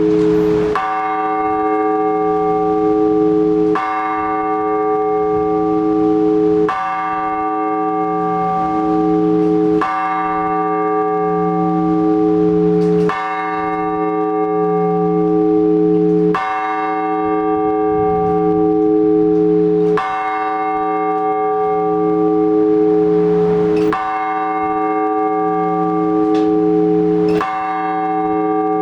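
Large Orthodox church bell struck in slow single strokes, about one every three to four seconds, each stroke ringing on into the next: the measured blagovest that calls the faithful to the all-night vigil.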